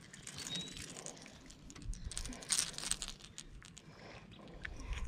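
Faint irregular crinkling and rustling with scattered clicks, sharpest about halfway through: handling noise while a crappie is reeled in and lifted up the bank by its line.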